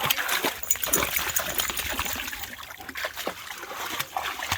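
Rottweiler wading and splashing through shallow creek water, a run of irregular splashes over the trickle of the flowing creek.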